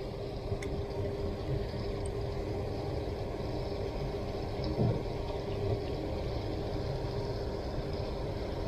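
Steady rush of a small river's flowing water, with a few faint ticks.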